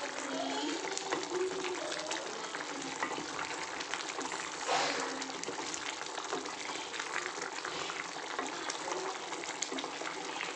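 Thick coconut-based egg curry bubbling and popping in a pan as it boils, with small wet pops throughout and one brief louder rush about halfway through.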